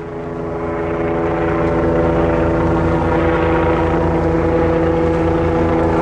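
Kawasaki BK117 twin-turbine helicopter approaching, its rotor beat pulsing under a set of steady engine tones. It grows louder over the first two seconds, then holds steady.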